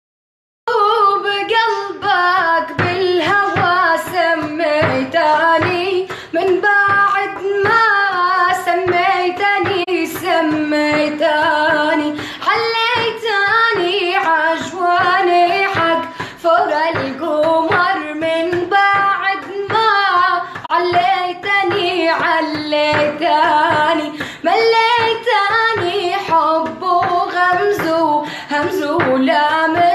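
A female voice singing an Arabic song solo, in a long ornamented melodic line with wavering, held notes.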